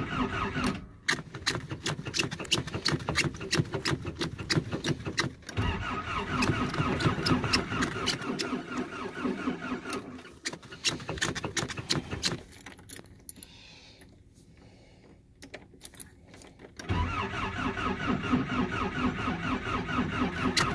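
Nissan 720 pickup's engine cranked by its starter in several long runs with short breaks, not catching: a failed cold start. Heard from inside the cab, with a quieter, weaker stretch about two-thirds of the way through before strong cranking resumes.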